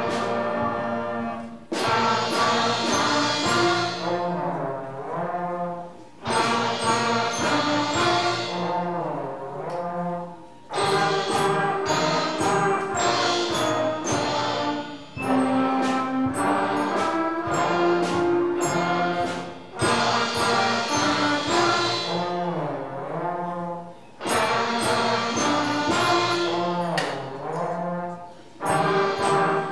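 Student band with trombones and other brass playing a tune together, in phrases of about four to five seconds with a short break between each.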